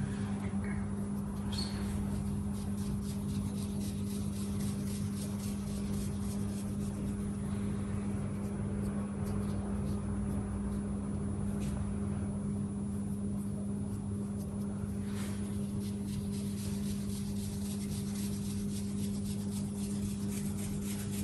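A steady low electrical or motor hum, with faint soft sounds of a ball of dough being pressed and patted in dry flour.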